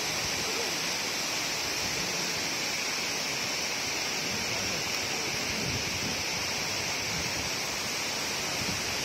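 Steady rushing of a large waterfall cascading down a tall rock face, an even, unbroken wash of falling water.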